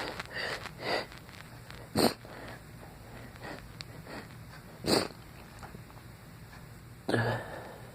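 A man sneezing three times, about two, five and seven seconds in, with sniffles in between; the last sneeze is voiced. He puts the sneezing down to an allergy to a cat.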